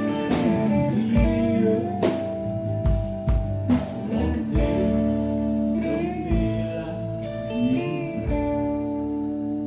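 Live country band playing: guitars hold chords, with a few bent notes, over occasional kick drum hits.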